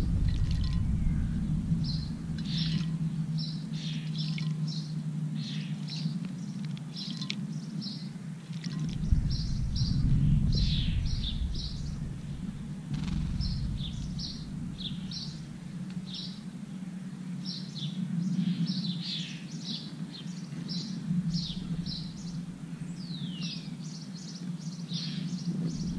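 Small garden birds chirping in quick runs of short high notes throughout, with one call that slides down in pitch near the end, over a steady low rumble of background noise.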